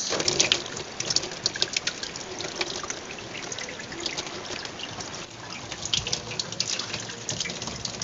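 Water from a garden hose running and trickling over thick frost packed in a fridge's freezer compartment, with many small splashes and drips throughout: the freezer is being defrosted by hand.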